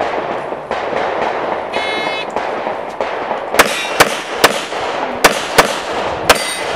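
Handgun shots fired in quick succession: six sharp reports at uneven gaps of roughly half a second, beginning about three and a half seconds in.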